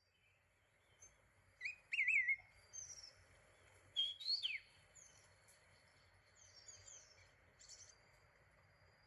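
Formosan laughing thrush (white-whiskered laughingthrush) calling: a wavering whistled note about two seconds in, then a short whistle that rises and falls back about four seconds in, with fainter, higher chirps between and after.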